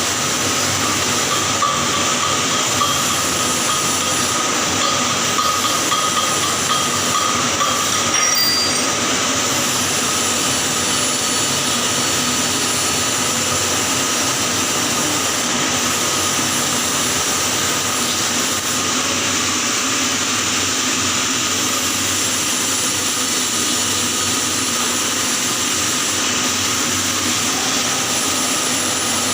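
Electric welding arc burning steadily: a continuous, even hiss with a faint steady tone, no breaks.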